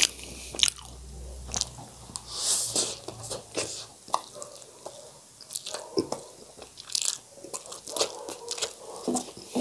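Close-miked eating sounds: noodles slurped in and chewed, with wet lip smacks and sharp mouth clicks.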